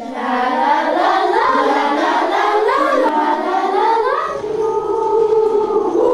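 Children's choir singing together, several voices moving through a melody and then settling on a long held chord about four seconds in.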